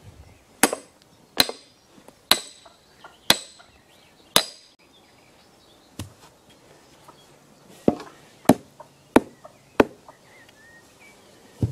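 A hammer striking the back of an axe head wedged in a plum stump, driving the axe down into the wood to split it. Sharp blows with a short metallic ring, five about a second apart, a pause, then a quicker run of four and a last one near the end.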